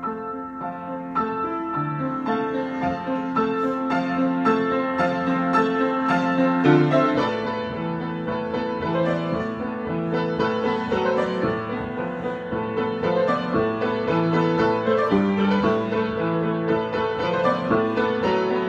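Solo piano improvisation: a steady flow of notes over held chords, without pause.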